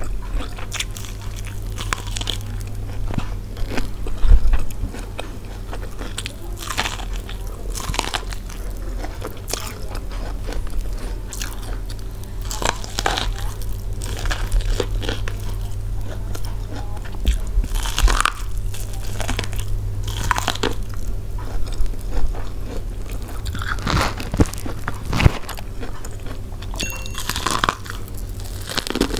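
Close-miked eating of steamed corn on the cob: bites pulling the kernels off the cob with the teeth, and chewing, heard as irregular short clicks and smacks over a steady low hum.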